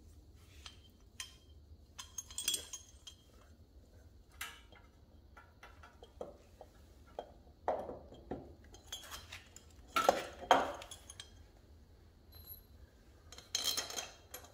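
Irregular metallic clinks and knocks as a Briggs & Stratton mower engine's cylinder head is handled and seated onto the block over a new head gasket, the loudest knocks about ten seconds in and near the end.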